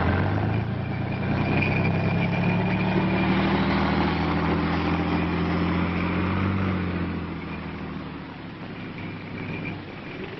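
Diesel engine of an M108 self-propelled howitzer running steadily as the tracked vehicle drives across a field, the engine sound fading after about seven seconds as it pulls away.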